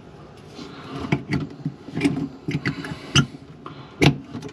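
Faucet hose quick-connect fitting being handled and pushed together under a sink: a run of small clicks and knocks, the loudest near the end as it snaps and locks in.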